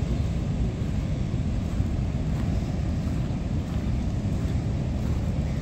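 Wind buffeting the microphone as a steady low rumble, with surf breaking on the rocks.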